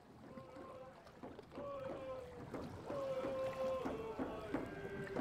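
A slow melody sung by a single voice, holding long notes that step downward in pitch, with a few sharp knocks between the notes.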